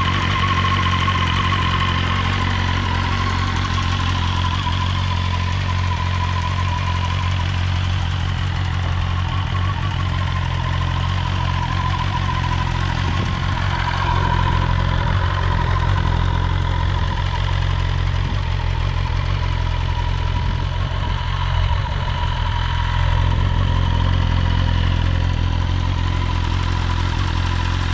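2020 BMW S1000RR's inline-four engine idling steadily through an Akrapovic slip-on exhaust shortly after a cold start, with a thin steady whine above the engine note.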